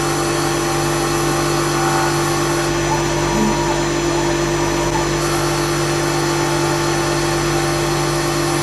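EagleTec EA-T6015A CNC wood lathe running its automatic turning cycle, a steady machine hum with a high whine that cuts out for about two and a half seconds in the middle and then returns.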